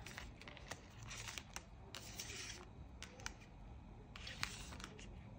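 Tarot cards being drawn and laid down one on another: faint scattered clicks and a few short sliding swishes of card against card.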